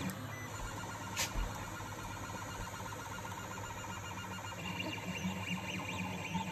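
FDM 3D printer running a print: its stepper motors whine in shifting tones as the print head moves, over a steady low hum. There is a single sharp click about a second in.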